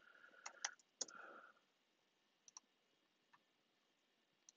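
Faint computer mouse clicks over near silence: a few in quick succession about half a second to a second in, then a double click now and then.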